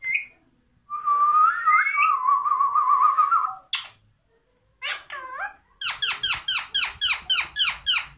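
Whistling between a person and a pet parrot: a warbling whistle held for a couple of seconds, a sharp click, a few swooping calls, then a quick run of short downswept whistled notes, about five a second.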